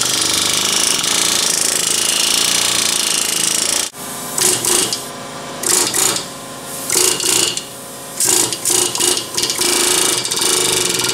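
Pneumatic air hammer driving a pinion bearing race into a Chrysler 9.25 rear differential housing. It runs in one unbroken burst for about four seconds, then in a series of short bursts with brief pauses.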